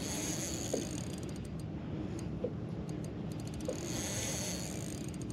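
Spinning reel ticking and whirring in light irregular clicks while a heavy hooked fish pulls against a bent rod, with the soft wash of water under it.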